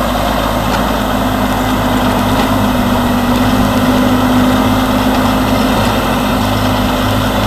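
Massey Ferguson 8480 tractor's diesel engine running steadily under load as it pulls a Dowdeswell plough through the ground. The tractor drives past close by, and the engine gets slightly louder about halfway through.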